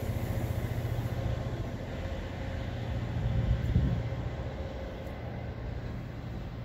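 Low, steady rumble of a departing diesel-hauled train, the Class 66 locomotives' engines fading slowly into the distance.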